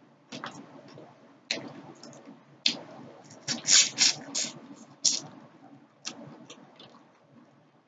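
Close-miked mouth sounds of eating fried fish: irregular wet lip smacks and chewing clicks, with a cluster of louder smacks about three and a half to five seconds in.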